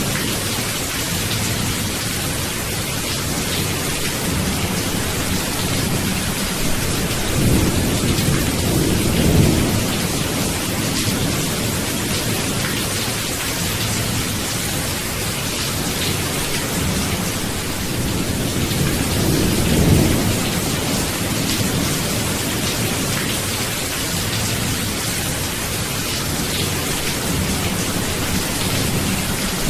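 Steady heavy rain with low rolling thunder, the rumbles swelling twice, about a third of the way in and again past the middle.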